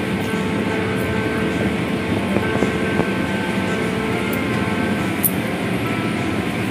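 Automatic car wash running: cloth wash strips sweeping over the car and water spraying, over the steady noise of the wash machinery.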